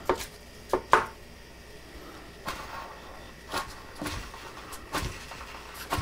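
Irregular light clicks and knocks, about eight of them with the loudest about a second in, from dryer parts being handled and fitted.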